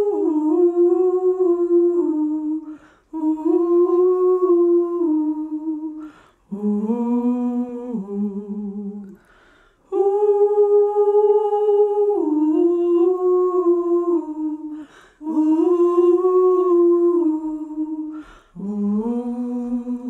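Soundtrack song: a wordless hummed vocal melody without accompaniment, long held notes in phrases of a few seconds with short breaks between them.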